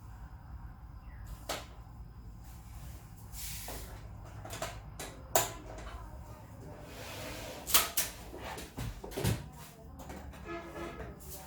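A computer case being handled and opened: a string of separate knocks, clicks and clunks, the loudest about five and eight seconds in, over a steady low hum.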